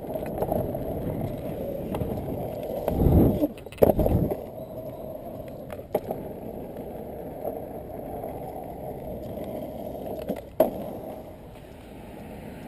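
Freebord's wheels rolling steadily over asphalt and concrete with a continuous rumble. About three and four seconds in there are two loud low thumps, and a few sharp clicks come later.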